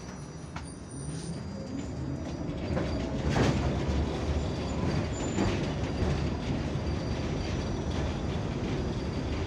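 Tatra T6B5SU tram running, heard from inside the car, getting louder as it picks up speed. A rising whine comes early on, and knocks of the wheels over rail joints sound several times, the loudest about three and a half seconds in.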